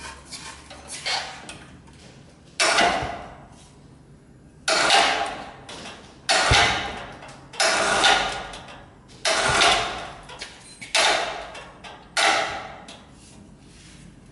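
Electric overhead hoist jogged in short bursts, each starting abruptly with a clunk and dying away, about ten times, as the heavy equatorial mount is lowered onto its pier.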